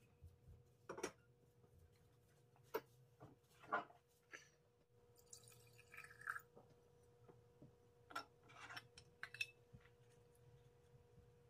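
Quiet tableware handling: scattered light knocks and clinks, with a short pour of soju from a glass bottle into a wine glass about halfway through.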